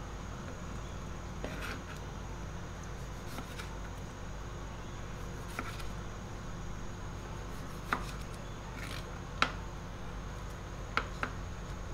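A kitchen knife cutting limes on a plastic cutting board, with a few sharp taps spaced irregularly as the blade goes through and meets the board. A steady low hum runs underneath.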